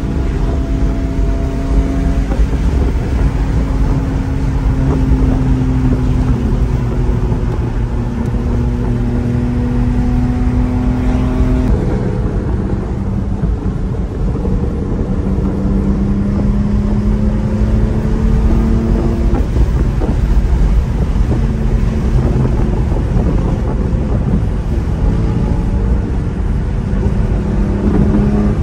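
Car engine droning while cruising, over heavy road and wind rumble; its pitch drifts slowly and its note changes abruptly about twelve seconds in.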